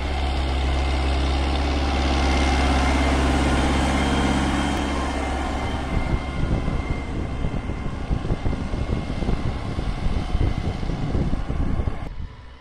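Diesel farm tractor engine running under load as it pulls a tine cultivator through the soil. For the first few seconds it is a steady drone. From about halfway it turns into a choppy, uneven rumble, and near the end it drops suddenly to a quieter, duller sound.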